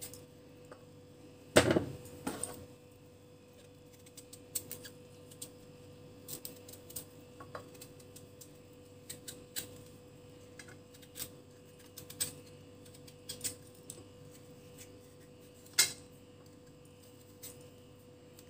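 A large kitchen knife peeling the hard rind off a piece of butternut squash over a china plate: irregular small clicks and scrapes, with a louder clink of metal on the plate about a second and a half in and again near the end. A faint steady hum runs underneath.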